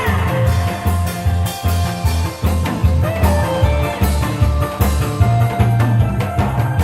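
Loud trot backing track over a PA, an instrumental passage with a steady, heavy beat and no singing; a short rising glide sounds right at the start.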